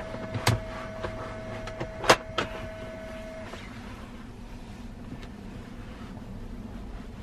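Recline mechanism of a 4-in-1 child car seat being worked as the seat is tilted back: a few plastic clicks and knocks, the loudest about two seconds in. Under it, a low steady hum and a faint steady tone that stops about three and a half seconds in.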